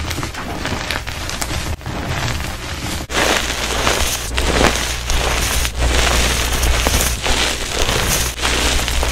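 Hands squeezing and crumbling loose gym chalk powder and small chunks: a continuous dry crunching and crackling that grows louder about three seconds in.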